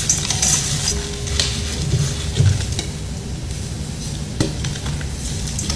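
Hands squeezing and crushing soft, powdery cupcake-shaped blocks in a stainless steel bowl: continuous soft crunching and crumbling, with a couple of sharper crackles.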